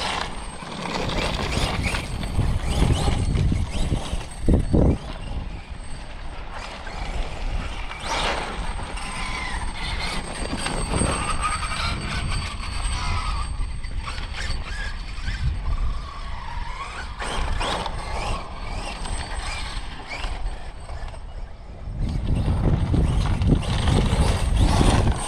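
Losi 5ive TE 3.0 1/5-scale electric desert truck being driven: its motor and drivetrain whine rising and falling in pitch over a steady noise of tires on dirt, with a few sharp knocks. It gets louder near the end.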